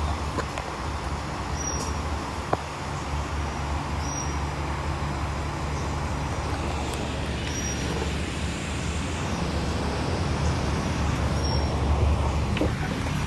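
IndusCom Orbit oscillating ceiling fan running on its top speed (speed 5): a steady rush of air over a low motor hum.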